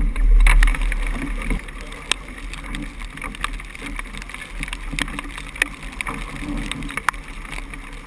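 Wind buffeting the microphone and water rushing past a heeled sailboat's hull, with a strong gust in the first second. Scattered sharp ticks of raindrops and spray striking the camera housing run throughout.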